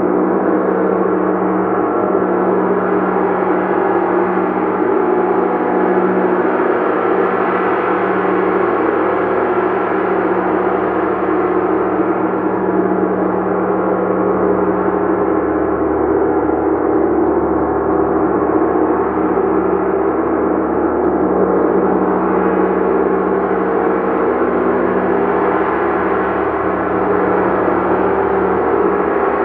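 Gong played continuously in a sound-bath style: a dense, sustained shimmering wash of many overtones that swells and ebbs slowly, with no distinct single strikes standing out.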